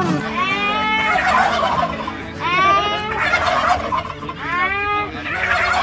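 Domestic turkeys gobbling: three gobbles, each about a second long, coming about two seconds apart.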